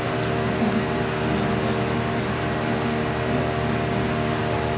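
Steady background hum and hiss with several held low tones, unchanging throughout.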